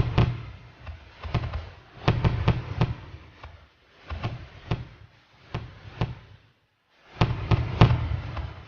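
Fireworks going off: sharp bangs from bursting shells in quick clusters, several a second, over a low rumble. There is a short lull about two thirds of the way through, then a dense burst of bangs near the end.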